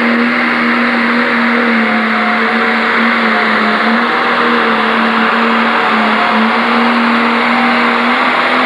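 International Harvester Pro Stock pulling tractor's turbocharged diesel engine running flat out under heavy load as it drags the sled. The pitch stays steady, wavering slightly.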